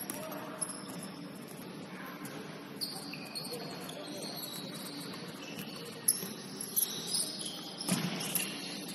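Basketball shoes squeaking on a gym court: many short, high squeaks over steady gym background noise, with a few sharp knocks in the second half.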